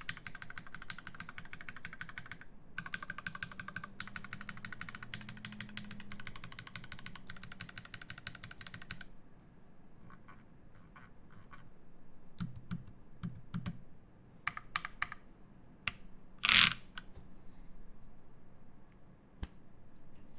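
Typing on a Satisfaction75 R2 mechanical keyboard with lubed Lavender switches on an FR4 plate and GMK keycaps. Fast, steady keystrokes run for about nine seconds, then thin out to a few scattered key presses, with one much louder sharp clack a little past the middle.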